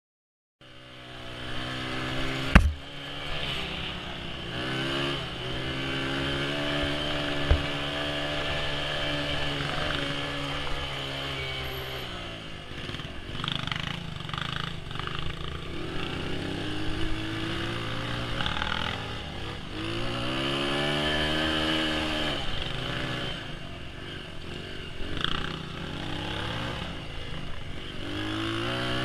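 Dirt bike engine on a trail ride, cutting in just after a brief silence and revving up and down over and over as the throttle and gears change. A sharp knock about two and a half seconds in is the loudest moment.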